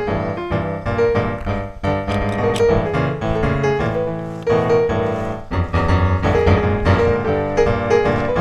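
Background piano music, a steady stream of notes with a low bass line.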